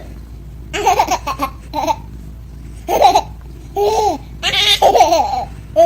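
A baby laughing in short repeated bursts of high-pitched vocalising.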